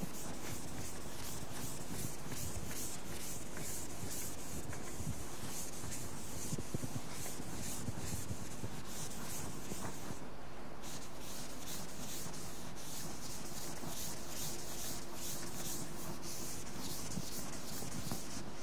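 Board duster rubbing across a chalkboard, erasing chalk writing in quick back-and-forth strokes, about three a second, with a short pause about ten seconds in.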